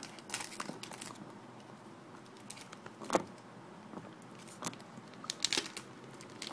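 Foil trading-card booster pack wrapper being handled and opened: scattered crinkles and crackles, with a sharp crackle about three seconds in and a quick cluster of them near the end.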